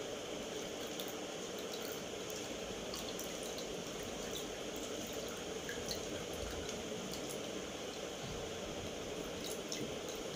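A steel ladle pressing and stirring thick bel (wood apple) pulp through a plastic strainer: soft wet liquid sounds with scattered light clicks of metal against the strainer, over a steady background hiss.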